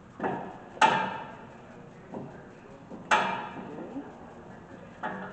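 Sharp metallic clanks with a brief ring: two loud ones about two seconds apart and a few lighter knocks around them. They come from working the dual pistons of a truck's front brake caliper back into their bores.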